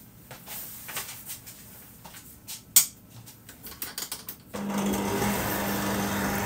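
Scattered clicks and knocks of handling a stand mixer, one sharp click near the middle. About four and a half seconds in, the mixer's motor starts and runs with a steady hum as its paddle beater mixes the cream-cheese cheesecake filling.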